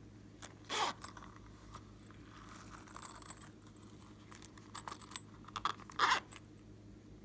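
A rubbery bunny-shaped zip pouch being handled and squeezed: soft rubbing and scattered small clicks, with two short louder rasps, about a second in and again about six seconds in.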